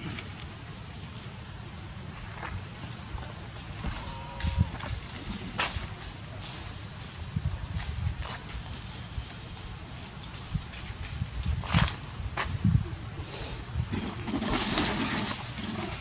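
Insects droning in one steady, high-pitched note, over a low rumble with a few soft knocks and rustles.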